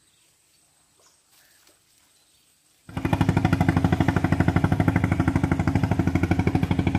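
Near silence for about three seconds, then suddenly a boat engine running loud with a fast, even pulsing beat.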